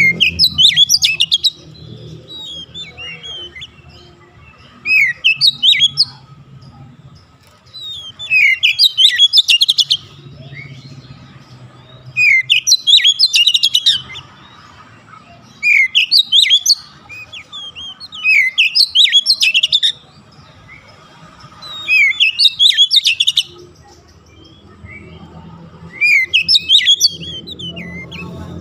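Oriental magpie-robin (kacer) singing loud phrases of rapid sweeping whistles and trills, about eight bursts a few seconds apart.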